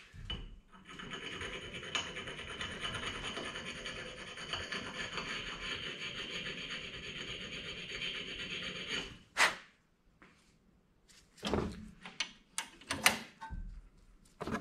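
Steady grinding of the end of a Tecumseh engine's exhaust valve stem for about eight seconds, taking a little more metal off to open the valve clearance toward the 4 to 8 thousandths spec. It stops abruptly, followed by a sharp click and a few light knocks of tools being handled.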